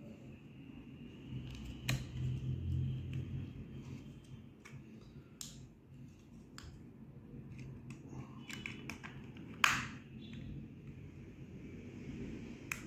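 Light clicks and taps of small plastic parts being handled: the plastic controller box of an LED string light being fitted back together, with one sharper click about ten seconds in.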